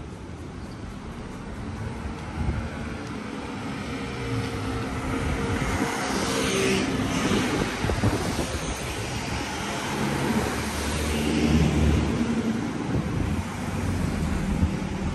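Street traffic: a vehicle passes close by, its noise swelling to a peak about halfway through, with the low hum of another engine a few seconds later.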